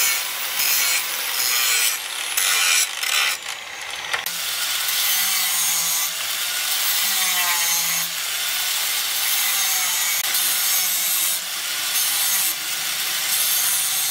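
Electric angle grinder's abrasive disc grinding metal, a harsh hiss that breaks off and restarts several times in the first four seconds as the piece is pressed on and lifted, then runs steadier.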